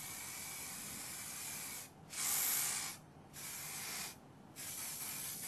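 Aerosol hairspray hissing in bursts: one long spray of about two seconds, then three shorter sprays with brief pauses between them, the second the loudest. This is the final coat to hold a backcombed hairstyle in place.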